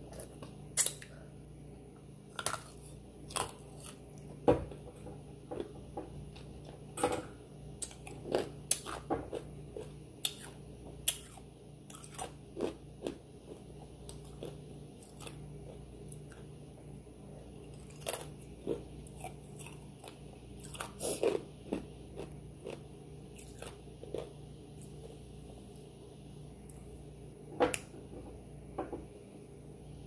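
Close-miked mouth sounds of a person chewing food: irregular sharp clicks and wet smacks, a few at a time, with pauses between, over a steady low hum.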